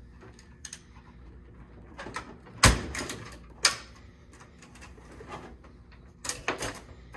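Scattered clicks and snaps of hard plastic as the transit retainers that hold a Traxxas X-Maxx RC truck's suspension compressed are worked off by hand with a tool. The loudest is a sharp snap with a low thump about two and a half seconds in, followed by a knock about a second later and a few quicker clicks near the end.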